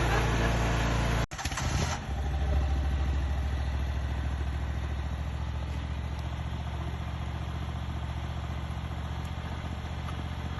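Riding lawn mower engine running steadily. It breaks off abruptly about a second in, with a brief clatter, then runs on evenly.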